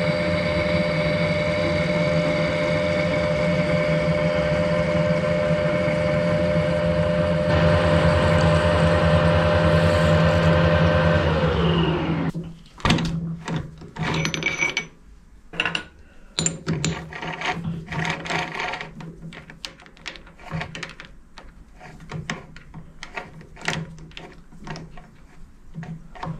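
Harrison metal lathe running with a steady whine, then switched off about eleven seconds in, its pitch falling away as the chuck spins down. Then come irregular metallic clicks and knocks as a hand works the three-jaw chuck and the turned part.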